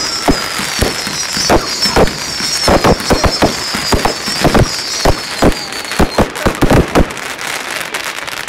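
Home fireworks going off in a barrage: rapid, irregular bangs of aerial bursts, several a second. Under them runs a high whistling that falls slightly in pitch and fades out about six seconds in. The bangs thin out near the end.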